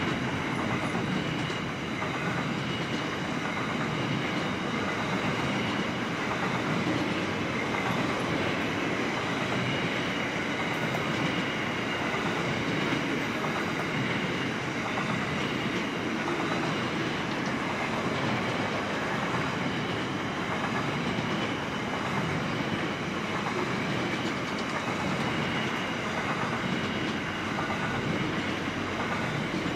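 Container wagons of a long freight train rolling past at steady speed: a continuous rumble of steel wheels on the rails, with clacking from the wagons.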